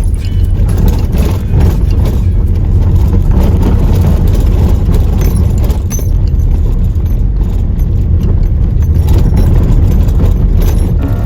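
Steady low rumble of a vehicle on the move, with light rattling and knocking over it.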